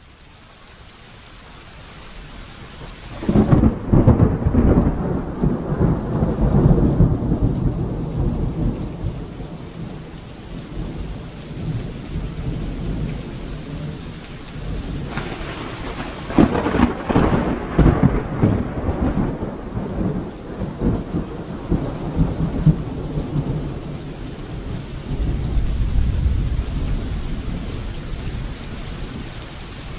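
Thunderstorm: steady rain, with a loud thunderclap about three seconds in and another about sixteen seconds in, each rolling into a long rumble. A further low rumble swells near the end.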